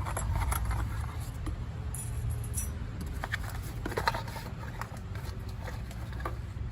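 Scattered light metallic clinks and rattles of new brake pads and their metal hardware clips being handled, with a sharper click about four seconds in, over a steady low rumble.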